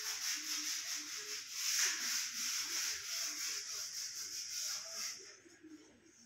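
A hand-held pad rubbed briskly over a freshly painted decorative wall, a dense scratchy hiss in quick back-and-forth strokes that stops about five seconds in.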